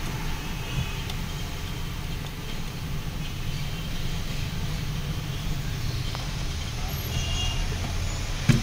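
Steady low background rumble with no distinct event in it, and a few faint short high tones near the end.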